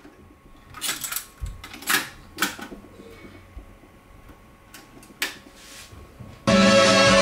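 Proton AD-200 cassette deck being handled: a series of sharp mechanical clicks and clunks from its transport keys and cassette door as a tape is loaded. About six and a half seconds in, music from the tape suddenly starts playing.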